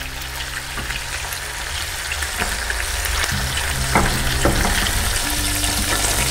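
Pork pieces sizzling in hot oil in a frying pan, with a few sharp clicks of a metal fork about two and a half and four seconds in. Background music with held low notes plays underneath.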